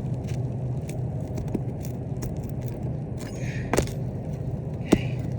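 Clicks and sharp taps of a hand tool working a roofing nail loose from under a brittle asphalt shingle, with two louder knocks about four and five seconds in, over a steady low hum.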